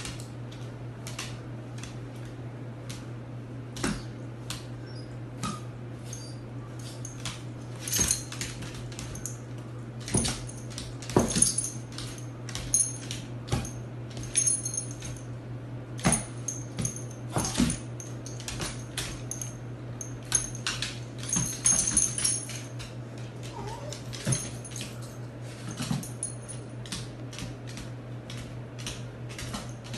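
Two small dogs playing on a hardwood floor: scattered clicks and taps of paws and claws, with collar tags jingling now and then, over a steady low hum.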